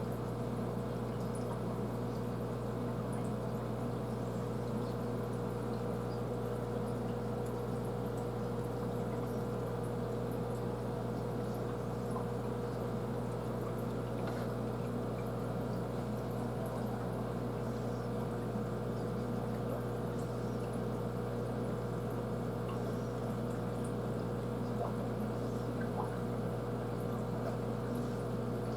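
Aquarium filter pump running: a steady low hum with a constant tone above it, over water splashing and trickling.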